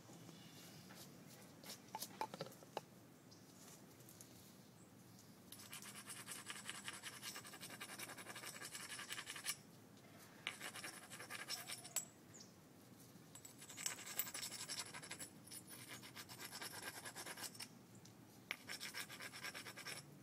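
Rapid scraping of a tool along the edge of a piece of green sheen obsidian during flintknapping, in four bursts of a few seconds each with short pauses between. There are a few sharp clicks about two seconds in.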